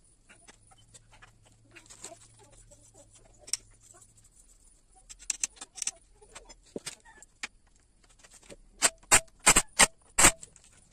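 Light metal clinks and taps of parts and tools being handled, then near the end about five short loud bursts from a cordless impact wrench driving the camshaft sprocket bolt tight.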